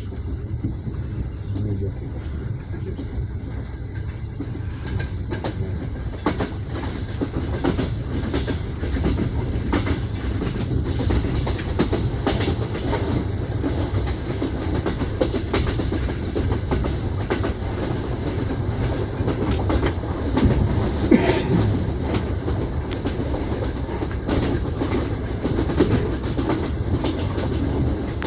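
Passenger train wheels clicking over rail joints, heard from inside an open-plan sleeper (platzkart) carriage over a steady low rumble, growing a little louder after the first few seconds.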